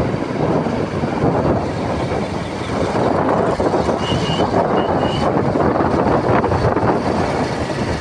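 Wind buffeting the phone's microphone, a loud, steady rumble. Two faint, brief high double chirps come about four and five seconds in.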